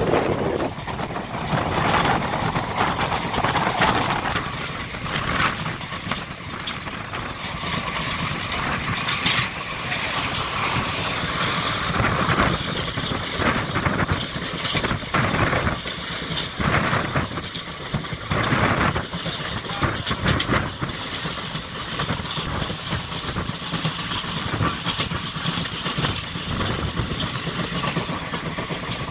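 Indian express passenger train running, heard from on board: a steady rumble of wheels on rails with irregular knocks and clatter as the coach goes over the track.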